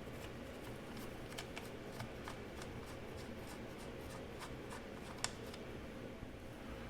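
Faint handling noises of a portable bandsaw's metal parts being worked by hand: light clicks and rubbing, with one sharper click about five seconds in, over a low steady hum.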